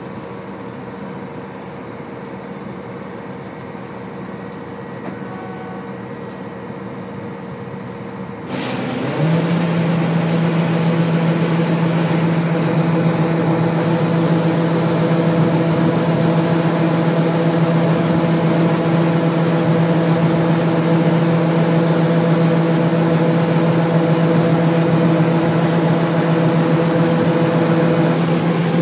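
John Deere T660 combine harvester running steadily, then about a third of the way in its unloading auger is switched on: the sound jumps suddenly louder into a strong steady hum. A few seconds later grain starts pouring from the auger spout into a trailer, adding a steady hiss.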